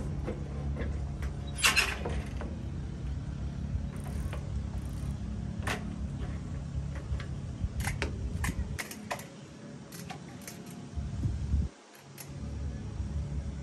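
Wind rumbling on the microphone, dropping away briefly twice in the second half. About two seconds in there is a short metallic rattle of a bicycle being lifted off its kickstand, and scattered light clicks and rattles follow as the bicycle is ridden away.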